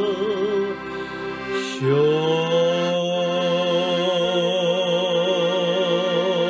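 A man singing long held notes with a wavering vibrato over sustained chords on a Hohner accordion; about two seconds in he slides up to a new note and holds it.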